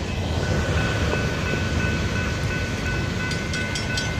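A railroad grade crossing's GS Type 3 electronic bell sounding as a steady ringing tone that drops out briefly now and then, and is joined about three seconds in by rapid clicking of about four a second: the glitchy gong is malfunctioning. Under it runs the low rumble of the freight train.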